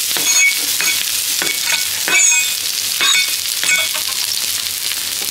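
Sliced onions frying in hot oil in a stainless steel skillet: a steady sizzle with sharp crackles and pops scattered through it.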